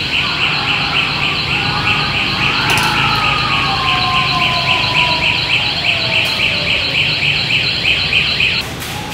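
Motorcycle anti-theft alarm (FOX system) wailing: a loud, high, rapidly pulsing siren set off when the armed bike is pushed. It starts at once and cuts off shortly before the end.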